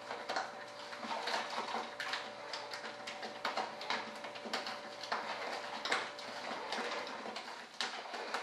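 Hands working inside a plastic bucket, giving a steady run of irregular scrapes, clicks and light knocks. A faint steady hum lies under it until about six seconds in.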